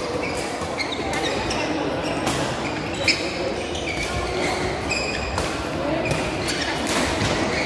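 Badminton doubles rally: rackets striking the shuttlecock again and again in quick exchanges, with one louder hit about three seconds in. Court shoes squeak briefly on the court surface between strokes.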